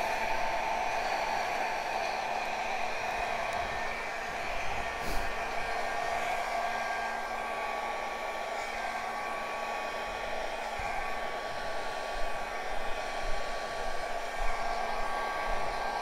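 Small handheld blow dryer running steadily close up, a constant rush of air with a faint motor whine, blowing wet acrylic pour paint across a canvas. Its level wavers slightly in the last few seconds.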